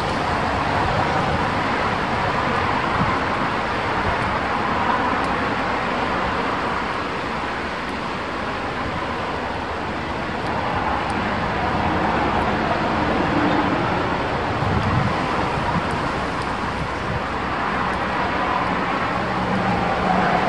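Strong wind blowing across the microphone: a steady rushing noise with low, gusty buffeting that swells and eases.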